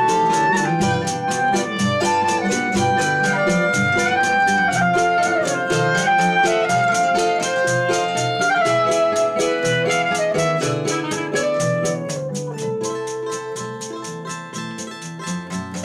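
Choro played by an acoustic ensemble: two clarinets carry the melody over plucked acoustic guitars, including a seven-string guitar, that keep up a busy rhythm. About twelve seconds in, the clarinets stop and the plucked strings carry on alone, more quietly.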